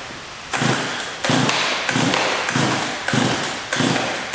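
Stihl MS170 two-stroke chainsaw being pull-started on full choke: about six quick pulls of the recoil starter cord, each a sudden rasp that dies away before the next.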